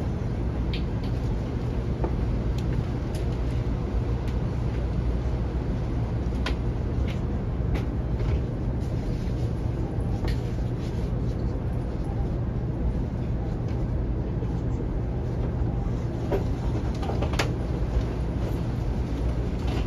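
Steady low rumble inside a Taiwan High Speed Rail passenger car as the train runs, with a few faint clicks and creaks from the cabin.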